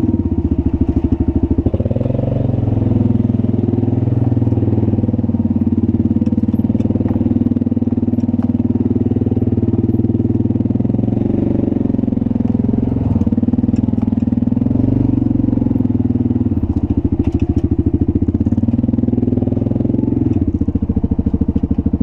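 Yamaha Wolverine side-by-side's engine running at low revs with a steady pulsing beat, swelling and easing a little a few times with the throttle as the machine crawls over rock.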